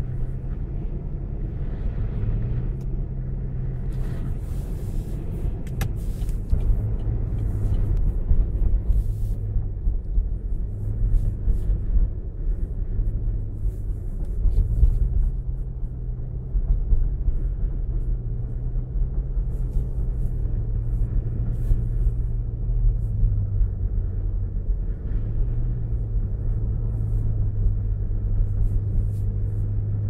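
A car's engine and road rumble heard from inside the cabin while driving on snowy streets: a steady low rumble with an engine hum that shifts up and down in pitch several times, and scattered faint clicks.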